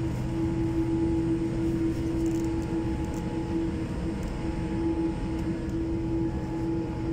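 Cabin noise of a Boeing 787-8 taxiing: a steady rumble of the engines at idle and the air system, with a constant droning hum.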